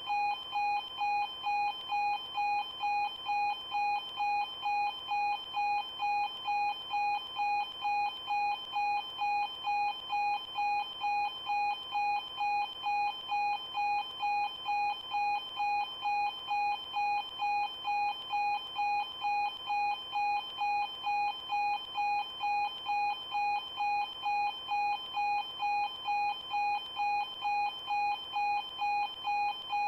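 Railway level crossing warning bell ringing in an even, unbroken rhythm of one repeated electronic ding, about two a second.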